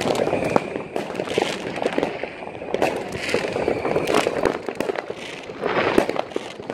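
Fireworks and firecrackers going off all around: a dense, irregular run of bangs, pops and crackles with no pause.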